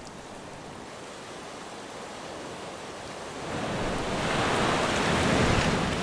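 Atlantic surf washing on a rocky shore: a steady wash of water, then a wave surges in about three and a half seconds in and grows louder as it breaks over the rocks close by.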